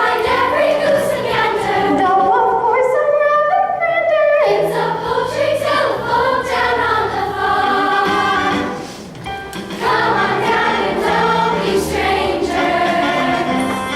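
Stage-musical number: a group of voices singing together over instrumental accompaniment, with a short drop in level about nine seconds in.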